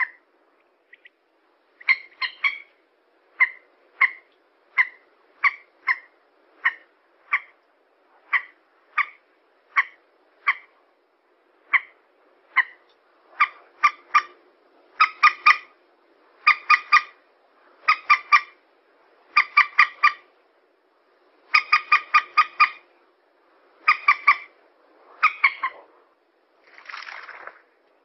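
Common moorhen calling: short, sharp 'kek' notes about one to two a second, building into quick runs of three to five notes, then one longer, harsher call near the end.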